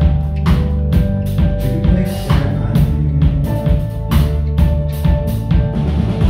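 Live rock band playing: a drum kit keeping a steady beat of about two hits a second over electric bass and acoustic guitar chords.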